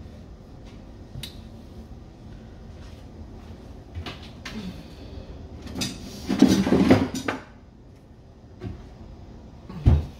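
Kitchen handling sounds off to one side: a few light clicks, a louder clatter and rustle lasting about a second from around six seconds in, and a low thump near the end.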